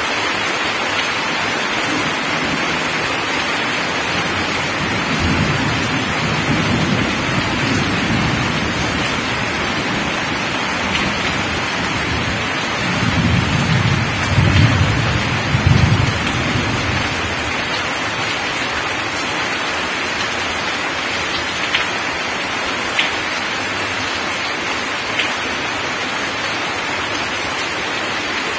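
Steady heavy rain falling on gravel and puddled ground. A low rumble swells twice, a few seconds in and again about halfway through, the second louder, and a few sharp drip ticks come near the end.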